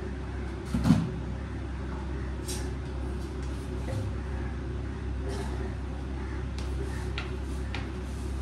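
Kitchen handling sounds over a steady low hum: a sharp knock about a second in, then a few light taps and clicks as a plastic jug of sugar is handled over a pot for sugar syrup.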